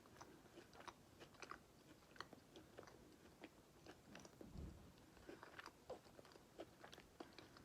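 Faint close-up chewing of a soft chocolate cookie: small irregular wet clicks and crackles of the mouth working, with one soft low thump about halfway through.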